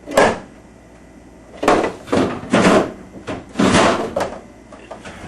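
Refrigerator door and drawers being opened and handled: one short burst at the start, then a run of four or five quick sliding, knocking sounds about a second and a half in.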